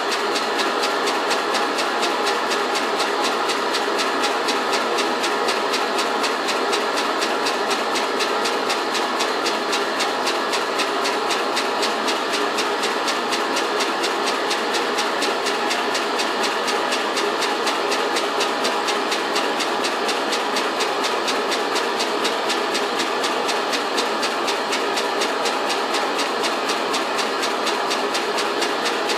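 Small homemade steam engine, cast from melted aluminium cans, running steadily on steam: a fast, even beat of strokes over a steady hiss of steam, with steam leaking from its spool valve.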